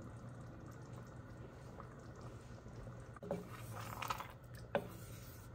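Thick chili simmering in an enameled cast-iron pot over a low steady hum. A little past halfway a wooden spoon stirs through the chili with wet squishing, and near the end there is a single sharp knock of the spoon against the pot.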